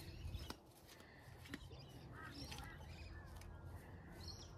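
Quiet outdoor background with faint distant bird calls, two short calls a little past two seconds in, and a few light clicks early on.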